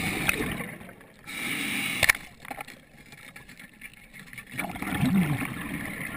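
Underwater gurgling and rushing of water and bubbles at the camera, coming in bursts with quieter stretches between. There is a sharp click about two seconds in.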